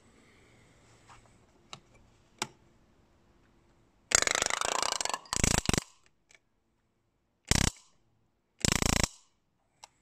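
Homemade ZVS-driven flyback and microwave-capacitor high-voltage rig firing its spark gap in four loud crackling bursts. The first, starting with a sharp crack about four seconds in, lasts about a second; two shorter bursts and a brief one follow, and a single click comes near the end. The discharge breaks the water-filled mug the leads are clipped into.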